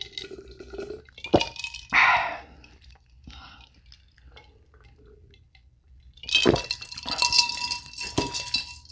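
Drinking water from a glass: a few small clicks and swallows, then, from about six seconds in, a louder run of glass clinks and knocks with a ringing tone as the glass is handled and set down.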